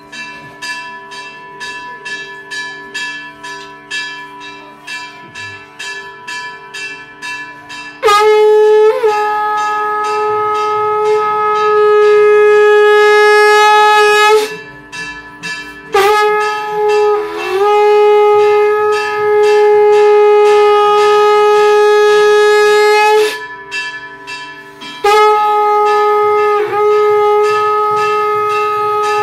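Hand-held temple bell rung steadily, about three strikes a second, then from about eight seconds in a conch shell blown in long steady blasts on one pitch, three in all with short breaks between, while the bell keeps ringing underneath.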